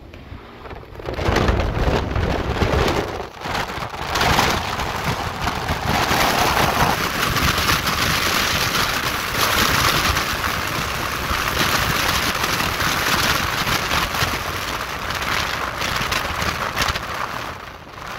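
Steady rushing of wind and road noise through the open window of a fast-moving truck. It builds up about four seconds in and eases off just at the end.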